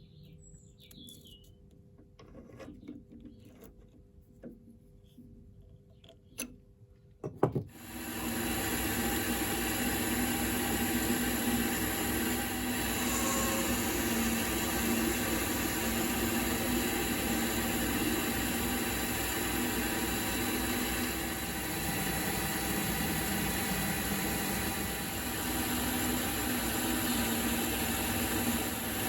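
A few faint handling clicks and knocks, then a workshop power tool starts about seven seconds in and runs steadily with a constant mechanical whir.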